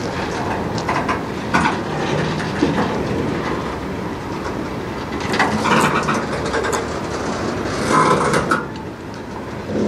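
Freight train's covered hopper cars rolling past close by: a steady rumble of steel wheels on rail, broken by clanks and rattles. The clatter is loudest about halfway through and again near the end.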